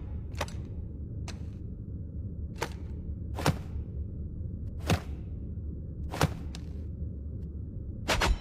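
Metal kunai throwing knives making a series of sharp, short impacts spaced irregularly about a second apart, some faint, with two in quick succession near the end, over a steady low hum.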